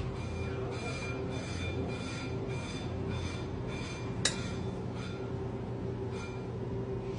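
Toyota Land Cruiser rear brake squealing in a pulsing pattern, a high ringing scrape that comes round about every two-thirds of a second as the wheel turns, over a steady low hum. One sharp click a little past four seconds in.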